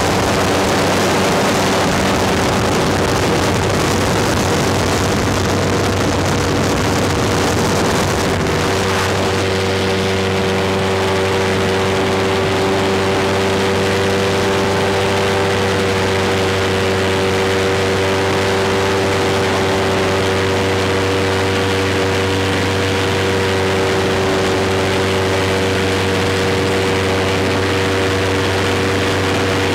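Airboat's engine and propeller running steadily at speed. About eight seconds in the hissing rush eases, while the engine's steady tone carries on.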